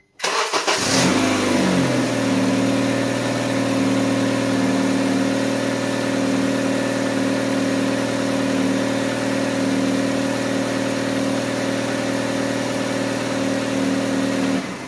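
Honda Civic 1.8-litre four-cylinder engine starting up, flaring briefly, then settling into a steady idle for about thirteen seconds before it is switched off near the end. It is a short run right after an oil change to bring the oil pressure up before the level is checked.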